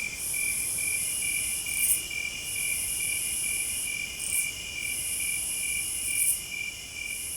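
Night insects calling in a forest. A cricket chirps steadily at about four pulses a second under a continuous high-pitched insect trill, which breaks off with a short louder rasp about every two seconds.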